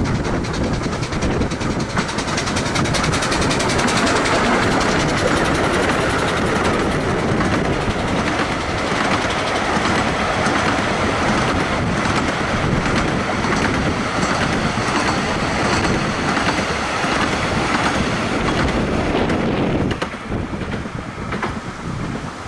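Bure Valley Railway No. 7 Spitfire, a 15-inch gauge steam locomotive, passing close with its train of coaches, the wheels clicking over the rail joints. The sound drops away about twenty seconds in as the last coach goes by.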